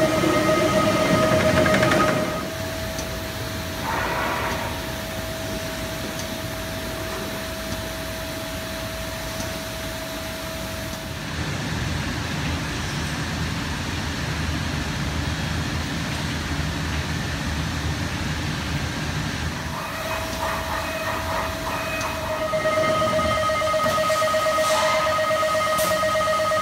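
Automated sheet-handling system of a Mazak Super Turbo-X510 Mk II laser cutter running: a steady mechanical whine with a fainter higher tone over a low rumble. It is loudest at the start. The whine drops out for several seconds in the middle, leaving only the rumble, then comes back louder near the end.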